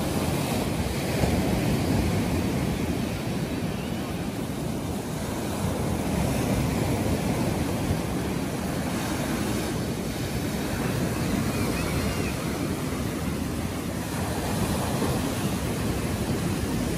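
Sea surf: small waves breaking and washing up a sandy beach, the rush of water swelling and easing every few seconds.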